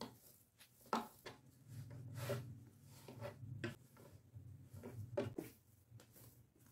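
Hands kneading soft bread dough on a floured wooden table: irregular soft thumps as the dough is pressed and slapped against the wood, with rubbing and scraping between them.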